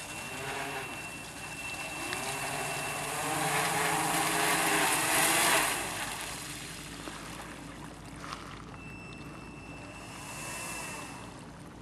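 The eight electric motors and propellers of a large radio-controlled scale model of the Hughes H-4 Hercules flying boat, taxiing on water with the hull rushing through the spray. The sound builds to its loudest about five seconds in, then drops off sharply at about six seconds as the throttle comes back.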